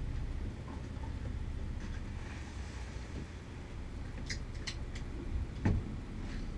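Steady low rumble of a fishing boat at sea, with a couple of faint clicks and one sharp knock near the end.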